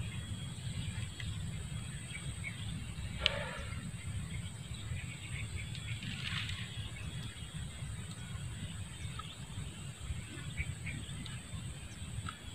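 Quiet outdoor marsh ambience: a steady low rumble under a thin high hiss, with a few short animal calls, the sharpest about three seconds in and another about six seconds in.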